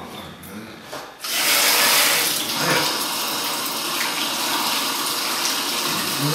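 Sink tap turned on about a second in, then water running steadily from the faucet into the basin and over hands being washed under it.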